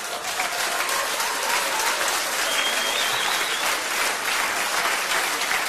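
A live theatre audience applauding steadily, with laughter mixed in.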